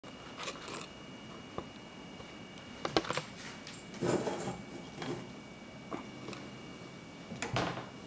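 Handling noise of a small metal vise and lock-picking tools: scattered light clicks and knocks, a sharp click about three seconds in and a longer scraping rustle just after four seconds.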